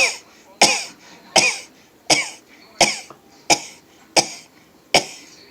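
A man's rapid sneezing fit: eight short, sharp sneezes in a row, about 0.7 s apart, each one dropping away in pitch as it fades.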